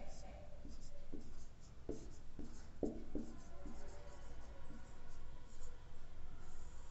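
Marker pen writing on a whiteboard: a run of short strokes, with a few sharper taps bunched near the middle.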